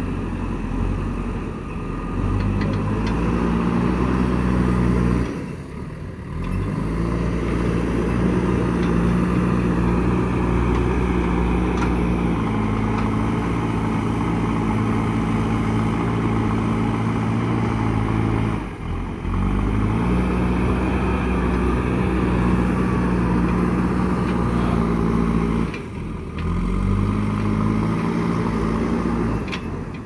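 JCB 3DX backhoe loader's diesel engine working under load, held at high revs for long stretches. It drops back briefly three times, about six, nineteen and twenty-six seconds in, then revs up again as the loader lifts and moves.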